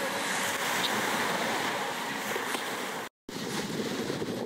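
Steady rushing noise with no clear pitch, cutting out completely for a moment about three seconds in.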